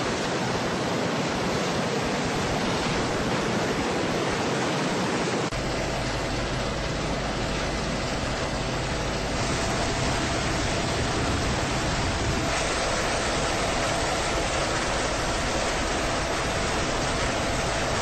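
Military helicopter running, a steady whoosh of rotor and turbine noise. About five seconds in it changes to the noise inside the cabin in flight, with a deeper steady hum and a faint steady whine.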